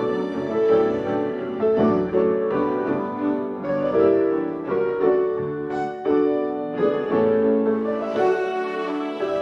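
Instrumental music: a piano playing a slow, gentle melody of struck notes, about two a second.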